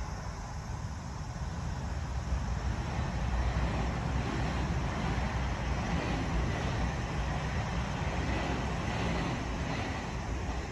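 Steady low rumbling outdoor background noise, a little louder through the middle.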